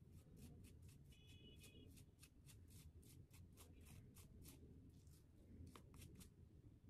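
Faint, quick, irregular scratchy strokes of a hair-dye tint brush and tail comb working through hair at the roots, about three a second.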